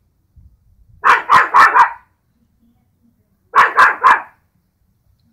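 Small poodle barking in two quick volleys of sharp yaps, four and then three, at ducks it is trying to chase off the pool.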